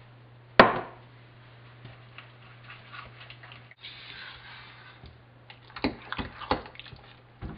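Spatula knocking and scraping against a glass mixing bowl while sugar is stirred into thick chocolate batter, with one sharp knock about half a second in and a cluster of clicks near the end.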